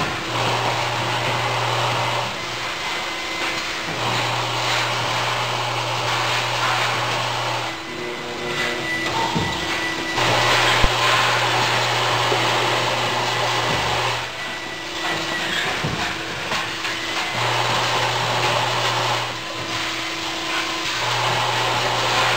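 Machinery of an automated robotic production cell running: a steady whirring hiss with a low hum that switches on and off every few seconds. There is a single sharp click about halfway through.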